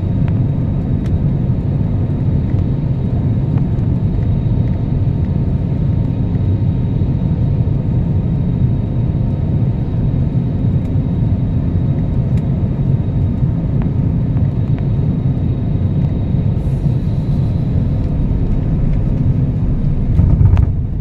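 Steady low rumble of a passenger aircraft's engines and airflow heard from inside the cabin, with a faint thin whine over it and a brief louder knock near the end.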